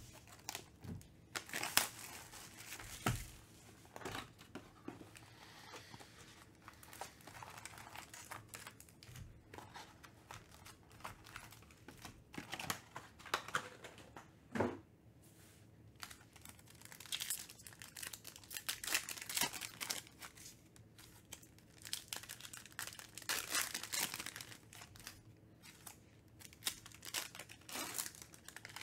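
Foil trading-card packs being handled, crinkling and tearing as they are opened, with a few light knocks of cardboard and packs set down on the table.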